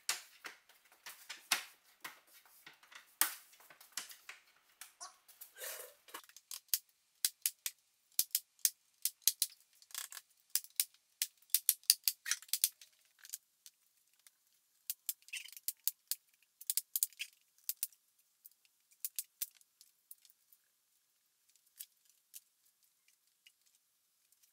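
Irregular light clicks and taps of wooden trim and small tools being handled. They are densest in the first half and grow sparse near the end.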